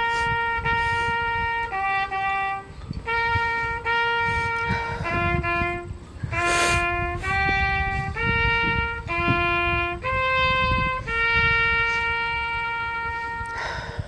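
A lone trumpet plays a slow ceremonial melody, one note at a time. Most notes are held a second or more, with a few short pickup notes, and the last note is held long and fades away near the end. A low rumble runs beneath it.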